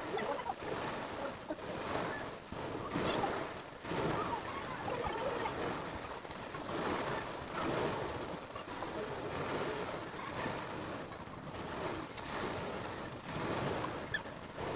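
Steady outdoor rushing noise, like surf and wind, swelling and fading every second or two, with faint distant voices now and then.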